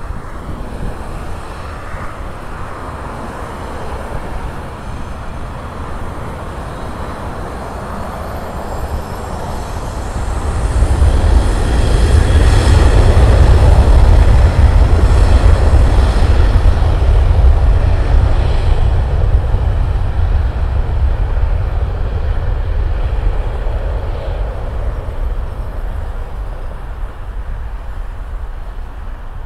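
Boeing 737 jet engines at takeoff power during the takeoff roll: a loud rumbling jet noise that swells about ten seconds in, stays strongest for several seconds as the plane passes, then slowly fades as it moves off down the runway.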